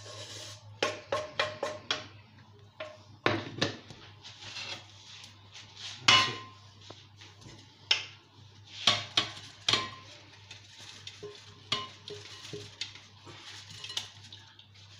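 Wooden spatula scraping and knocking against a frying pan as cooked cod and onion are scraped into a glass bowl, with a quick run of knocks early and scattered sharp clatters after. Near the end a plate of fried potato cubes is tipped into the bowl. A steady low hum runs underneath.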